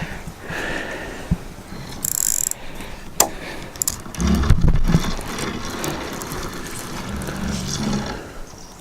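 Feeder-fishing tackle being handled: a spinning reel clicking and ratcheting, with a brief high hiss about two seconds in, a sharp click about a second later, and a few dull knocks around the middle.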